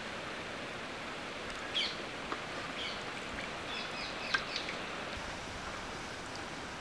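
Oil sizzling steadily in a large pan as potato-semolina fingers deep-fry, with a few short bird chirps about halfway through.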